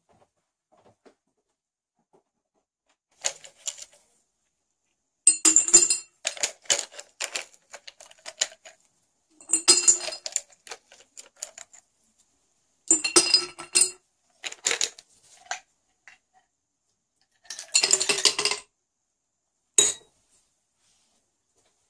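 Ice cubes dropped into a glass bottle, clinking and clattering against the glass and each other in several separate bursts.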